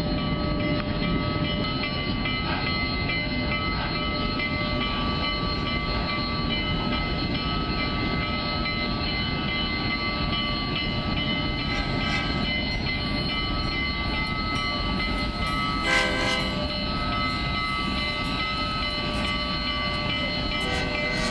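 A train led by Union Pacific steam locomotive No. 844 rolls slowly past. It makes a steady low rumble, with several steady high-pitched ringing tones held over it. There is a brief, louder sound about sixteen seconds in.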